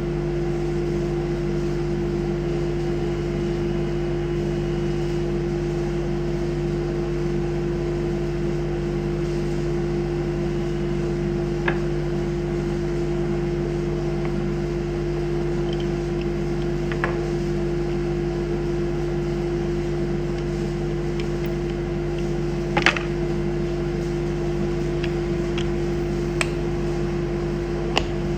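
CNC router spindle running with a steady high hum. A few sharp clicks come through now and then.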